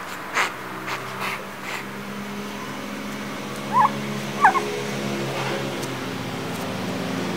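A kitten gives two short, high-pitched mews, under a second apart, near the middle, over a steady low background hum. A few faint clicks come in the first two seconds.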